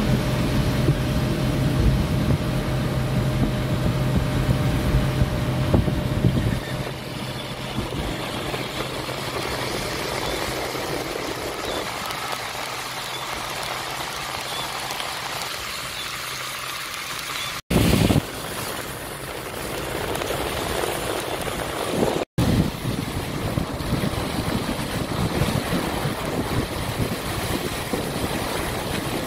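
Street traffic: a vehicle engine running steadily for the first six seconds or so, then a noisy wash of passing traffic. The sound drops out abruptly twice, once just before the midpoint and again a few seconds later.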